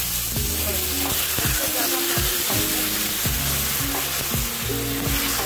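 Sugar and a little water sizzling in a metal kadhai, stirred with a spatula in repeated scraping strokes as the sugar melts into syrup (chashni).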